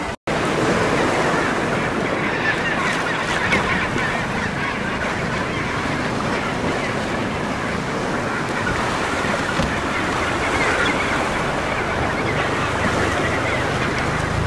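Many penguins calling at once in a colony, a dense chorus of overlapping calls, with surf washing underneath.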